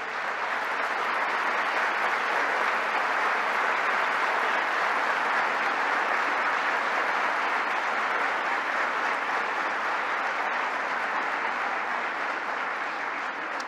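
Large audience applauding: a sustained round of clapping that builds in the first second, holds steady, and eases off slightly near the end.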